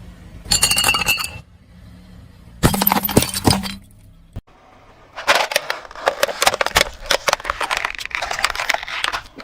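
Brittle objects crunching and cracking under a car's tyres, in three separate bursts: a short crackle with some clinking ring about half a second in, a few sharp cracks around three seconds, then a long run of dense crackling from about five seconds until near the end.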